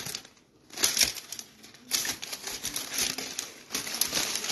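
Aluminium foil wrapping on a cake crinkling and crackling as it is handled, in several bursts after a brief pause near the start.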